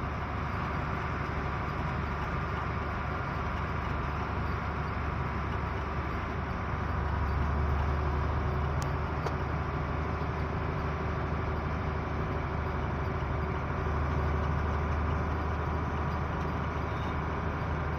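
Isuzu FTR truck's diesel engine running steadily under way, heard from inside the cab over road noise. The engine note swells slightly about seven seconds in and again a few seconds before the end.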